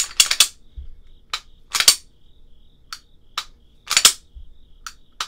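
Sig P320 pistol being function-checked after reassembly: the slide is racked and snaps forward with metallic clacks, and the trigger is dry-fired and reset with sharp clicks. A dozen or so separate clicks and clacks, loudest around two and four seconds in.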